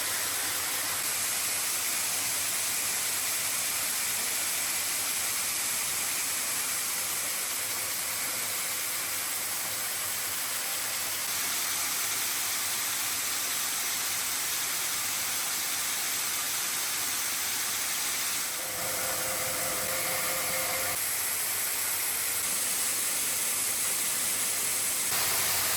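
Steady hissing noise, with a short whining tone about nineteen seconds in that stops about two seconds later.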